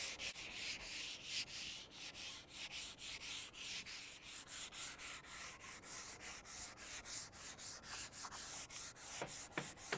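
Sandpaper rubbed by hand along a teak cap rail: quick, even back-and-forth sanding strokes with a dry hiss.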